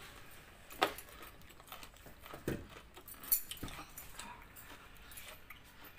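Table sounds of a meal eaten by hand from steel plates and bowls: a few sharp light knocks and clinks of metal dishware as rice and curry are mixed and picked up.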